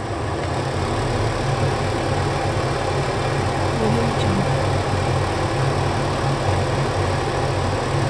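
Kitchen range-hood exhaust fan running: a steady rush of air over a low motor hum. It comes up to full level about a second in, then holds even.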